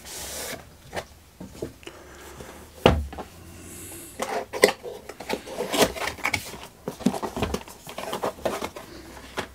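A product box being opened and its packaging handled by hand: a short rush of rubbing at the start, a sharp knock about three seconds in, then scattered rustling and light clicks.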